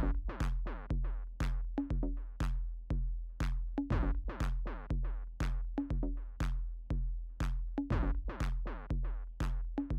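Electronic music with a steady drum-machine beat, about two beats a second, over a deep repeating bass note.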